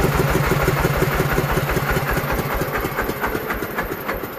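Single-cylinder diesel engine of a công nông farm truck idling with a rapid, even chugging, about eight beats a second, just after being hand-cranked to life. It gets somewhat quieter near the end.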